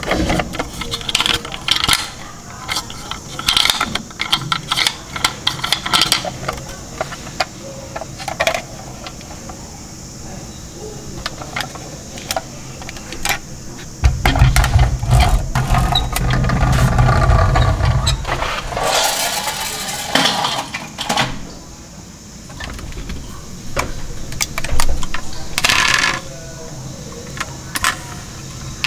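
Plastic clicks, clacks and rattles from a toy garbage truck being handled. About halfway through the truck rolls along the table for a few seconds with a steady low rumble, followed by more clicking and handling noise.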